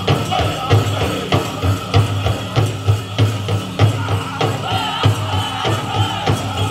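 Powwow drum group singing a chicken dance song, several voices over a steady, even beat on a large hand drum.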